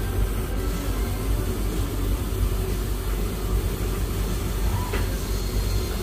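Beko front-loading washing machine running on a Cottons 90 cycle, a steady low rumble and hum.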